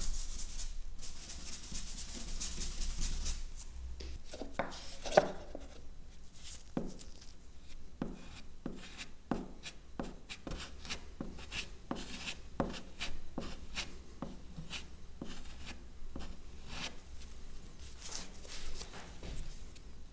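A gloved hand wiping solvent over a wooden door panel, a soft rubbing hiss, then a small plastic putty knife scraping and tapping on the wood in many short strokes as acrylic wood filler is worked onto the surface.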